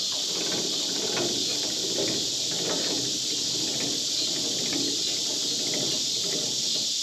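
Steady, high-pitched insect chorus, like crickets, with a few faint knocks and scrapes of handling underneath.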